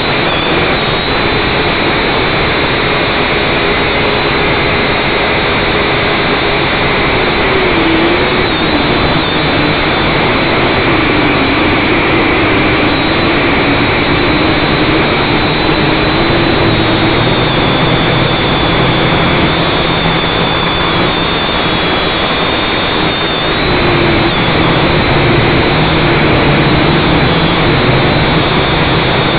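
Battery-powered FPV aircraft's electric motors and propellers running in flight, heard close up from the onboard camera: a steady whine over a dense rush of prop wash and wind, the motor pitch drifting up and down with the throttle.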